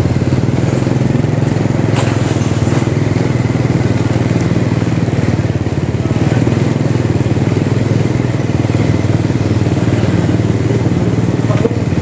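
Honda motorcycle's engine running steadily while riding slowly along a street, a continuous low drone with road and street noise around it.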